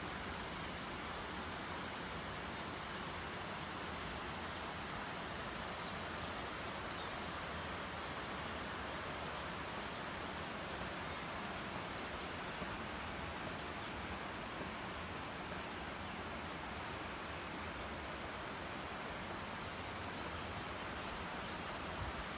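Steady, even outdoor rushing noise, with a faint high chirp or two about six seconds in.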